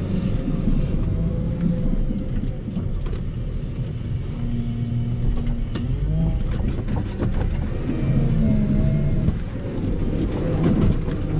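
Volvo L60H wheel loader's diesel engine running steadily with a low rumble, heard from inside the cab as it drives and clears snow. A few short whines that rise and fall come through over the engine.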